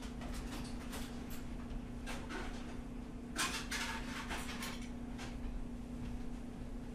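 Faint pencil strokes scratching on paper as lines are drawn along a ruler, a few short scratches with a cluster about halfway through, over a steady low electrical hum.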